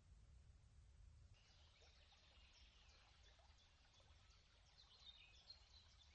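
Faint twittering of small birds, many short chirps starting about a second in, over a low steady background rumble.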